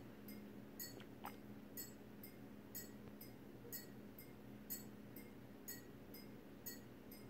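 Faint, even ticking of a clock, about two ticks a second, over a low steady hum in an otherwise near-silent room.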